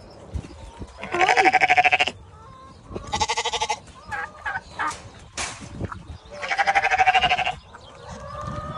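Dorper sheep bleating: three quavering bleats of about a second each, the first about a second in and the last near the end.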